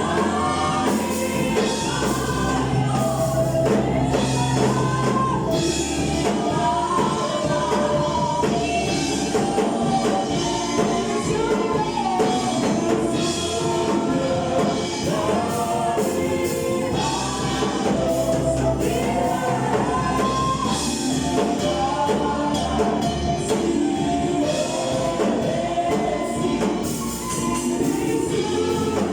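Gospel choir singing with band accompaniment, a steady bass line and a tambourine or similar percussion keeping the beat.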